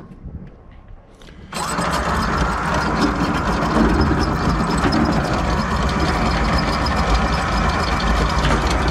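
Electric anchor windlass switching on about a second and a half in and running steadily, hauling the anchor chain aboard, with light clicks of the chain over the motor's hum.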